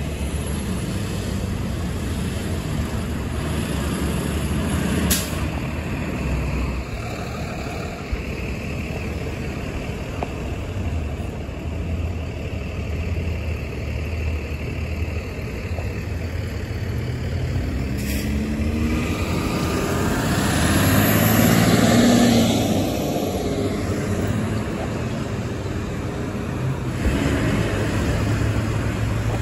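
Heavy trucks' diesel engines running in street traffic, a steady rumble with cars around. About twenty seconds in, one passes close and the sound swells for a few seconds as its engine pulls.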